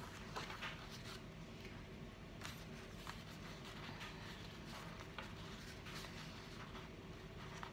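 Faint rustling and crinkling of paper as a ribbon is fed through punched holes in a stack of envelopes, with scattered soft handling noises.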